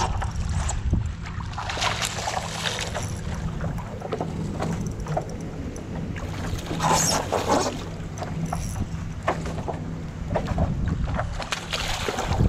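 Water splashing around a paddleboard as a hooked snook is fought, with surges of splashing and a hard splash near the end as the fish thrashes at the surface beside the board. Under it, wind rumbles on the microphone.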